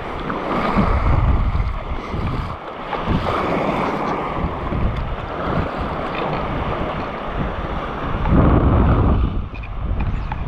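Wind gusting on the microphone in loud rumbling surges, over small waves washing and lapping in the shallows.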